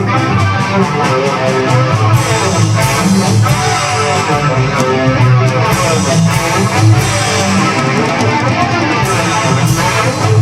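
Playback of a home-made music mix: strummed guitar over a steady drum beat, the drums given a large-room reverb to fill them out.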